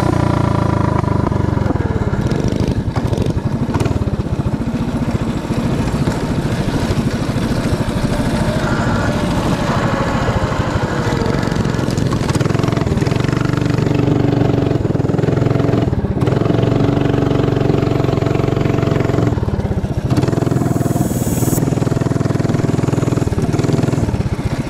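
Mini bike's small engine running steadily as the bike is ridden, its pitch drifting up and down with the throttle.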